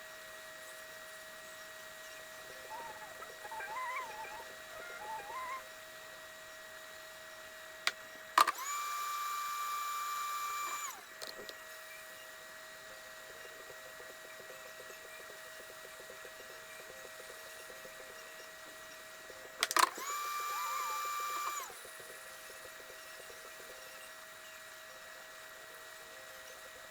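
A steady electric hum, twice interrupted by a click and a small motor or pump that whines at a higher steady pitch with a hiss for about two and a half seconds before stopping, returning to the hum each time. A few faint chirps sound a few seconds in.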